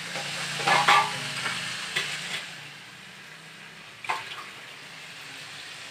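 Raw chicken pieces frying in oil in a steel wok, a steady sizzle, with a metal ladle scraping and stirring through them. The scrape is loudest about a second in, and there are a few short clicks later.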